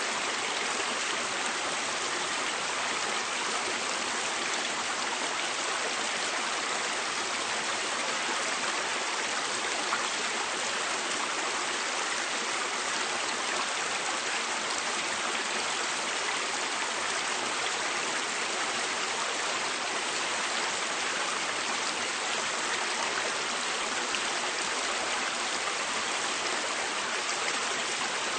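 River water flowing and rushing over rocks in a steady, even wash of noise.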